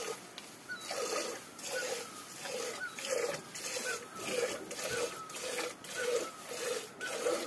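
A water buffalo being milked by hand, the milk squirting in short streams into a steel bucket at an even rhythm of about two squirts a second.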